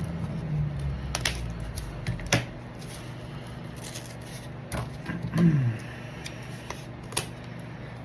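Handling of trading-card mailers and packaging: scattered light clicks, taps and rustles of paper and plastic, with a louder short sound about five and a half seconds in.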